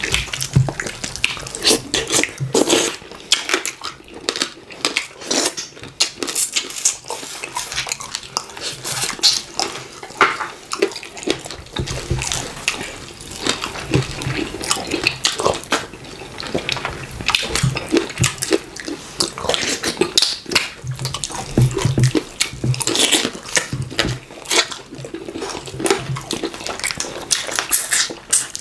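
Wet, sticky eating sounds from two people eating fufu and slimy okra soup with chicken by hand: a dense, irregular run of chewing, lip-smacking and squelching.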